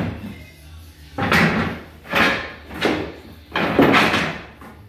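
Solid oak flooring planks clattering and sliding against each other as they are pulled from a bundle and set down, in about four separate bursts of wooden knocking.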